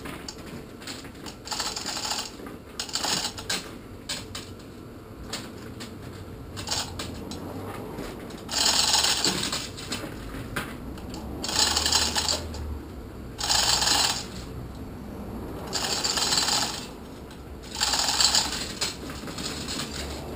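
Repeated bursts of rapid metallic rattling or ratcheting, each about a second long, heard about seven times at uneven intervals while the engine hoist is rigged and the engine readied for lifting.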